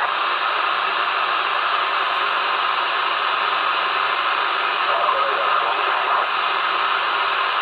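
Steady radio static from a two-way radio's speaker with the squelch open: an even hiss with no station coming through, bar faint traces of a weak signal about five seconds in.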